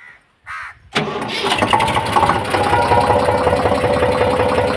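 Eicher 485 HD tractor's three-cylinder diesel engine starting. It catches about a second in, almost at once, and runs on steadily.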